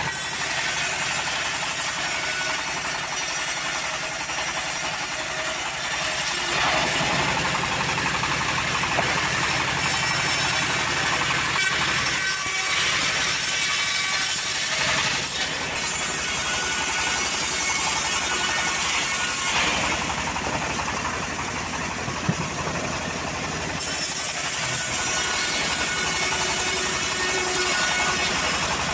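Homemade bandsaw sawmill running, its engine droning steadily while the blade saws teak into boards. The sound shifts abruptly several times.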